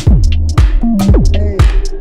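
Background electronic music with a steady beat: a deep kick drum about twice a second, with hi-hats and a bass line.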